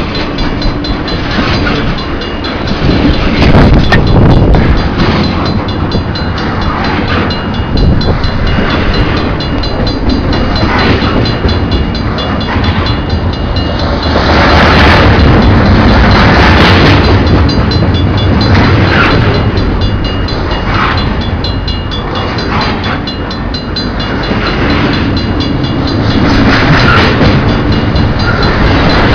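CN train's cars rolling past over a level crossing: a continuous loud rumble with irregular clatter from the wheels.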